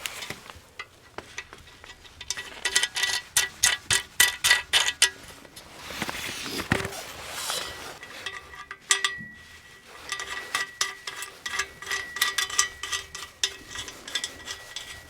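Metal kayak-rack frame parts clinking and knocking together as they are handled and fitted, in two quick runs of sharp clinks with a brief metallic ring after them. A rustling swell falls between the two runs.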